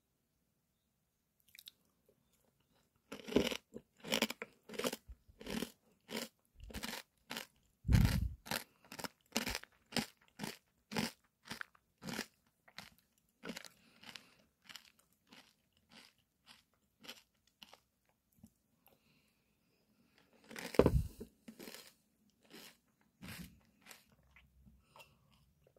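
Close chewing of crunchy cereal pieces eaten with yogurt: a run of crisp crunches about twice a second, thinning out after about thirteen seconds, with a louder burst of crunching about twenty-one seconds in.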